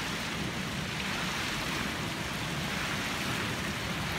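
Outdoor fountain water running and splashing steadily into a shallow stone pool.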